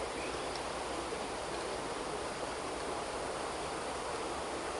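Steady, even rushing of flowing river water.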